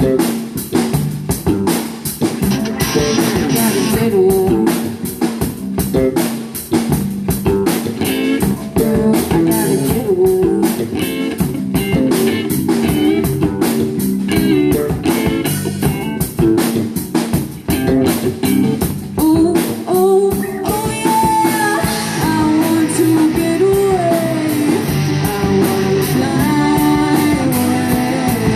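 Live rock band playing an instrumental passage: guitar over a driving drum kit beat. About twenty seconds in, the drum hits thin out and a lead guitar line bends and slides above the rhythm.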